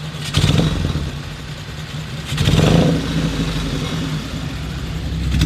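Car engine fitted to an old motorcycle, running steadily and revved twice, once just after the start and again near the middle, each time swelling and settling back to a steady run.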